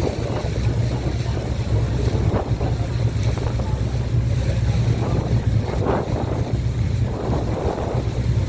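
Motor boat under way, its engine running with a steady low drone, with wind buffeting the microphone and the rush of water around the hull.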